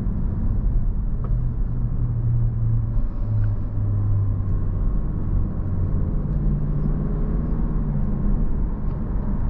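Lexus LC500's naturally aspirated 5.0-litre V8 running at low revs while the car drives gently, a steady low drone mixed with road rumble, its pitch shifting slightly a few times.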